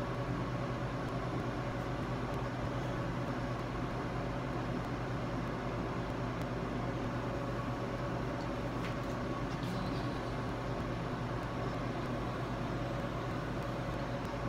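Steady hum of commercial kitchen equipment and ventilation: an even hiss over a constant low hum, with a few faint light clicks of handling.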